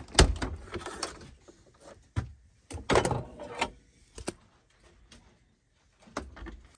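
An RV refrigerator door being unlatched and pulled open, with a sharp clack about a quarter second in. Knocks and rattles follow as a glass bottle is lifted out from among the jars and bottles inside, with a louder clatter about three seconds in and a few lighter knocks after.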